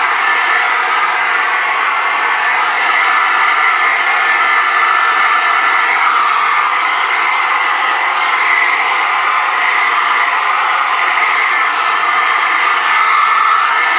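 Hairdryer running steadily: an even rush of air with a high hum, the pitch bands wavering slightly every few seconds.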